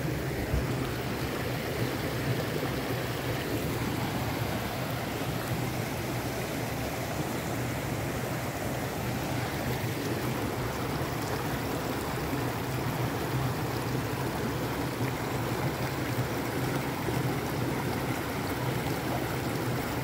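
Shallow rocky creek running over and between boulders: a steady rush of water.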